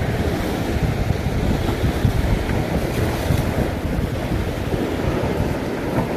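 Sea surf washing and foaming against a rocky shore in a steady rush, with wind rumbling on the microphone.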